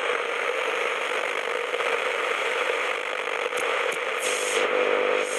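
Bomann DR 508 CB shower radio's small speaker hissing with AM-band static, no station coming in, with a steady tone running through the hiss. Crackles and short bursts of interference come in over the last couple of seconds as the tuning dial is turned.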